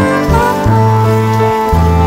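Background music: sustained instrumental notes over a steady bass line, with no other sound above it.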